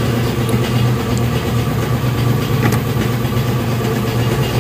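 An engine idling steadily, with a constant low drone.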